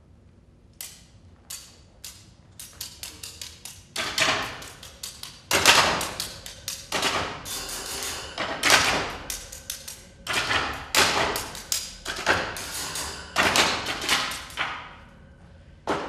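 A clatter of sharp knocks and cracks, a few spaced out at first, then coming thick and fast, and thinning out near the end.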